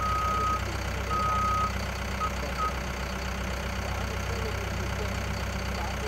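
Caterpillar D3 crawler dozer's diesel engine idling steadily, with the machine's high electronic warning beeper sounding two half-second beeps, then two short chirps, and then stopping.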